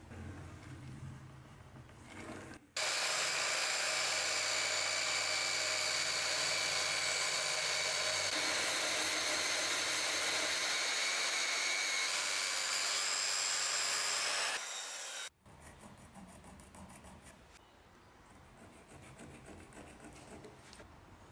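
A power tool, switched on about three seconds in, runs at a steady speed for about twelve seconds with a high whine over a rasping hiss, then cuts off suddenly.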